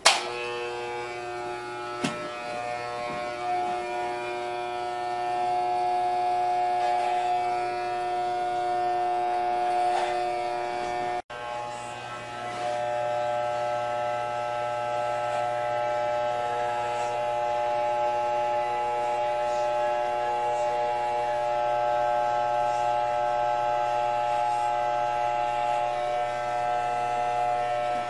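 Corded electric hair clippers buzzing steadily as they cut short hair at the side of the head and around the ear. The buzz drops out for an instant about eleven seconds in, then carries on.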